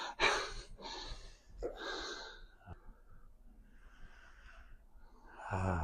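A person breathing slowly and audibly, a few long breaths in and out, louder in the first half.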